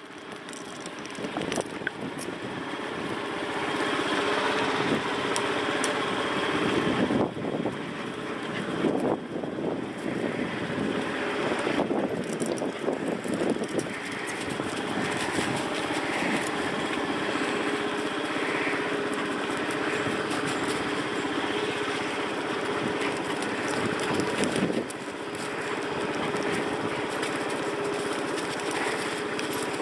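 Motorbike engine running as the bike rides along, growing louder over the first few seconds and then holding steady.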